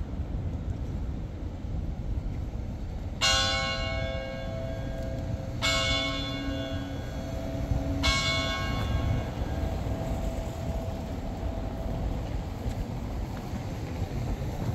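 Cathedral tower bell struck three times, about two and a half seconds apart. Each stroke rings out with a bright clang and fades slowly, and the hum of the last one lingers for several seconds over a steady low background rumble.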